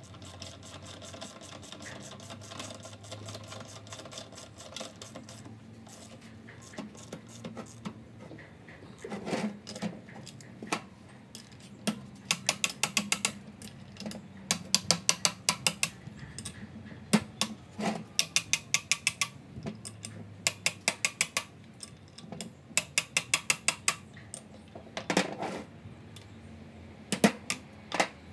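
Runs of quick, light hammer taps on a steel spanner, metal on metal, as the nuts on a steel coupling drive gear are worked. The taps come about six a second in runs of a second or two, repeated many times through the second half, with quieter scraping of metal before them.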